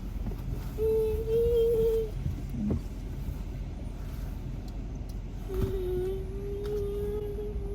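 Steady rumble inside a car cabin, with a child's voice humming a long, nearly level note twice: once about a second in, and again from just past five seconds to the end.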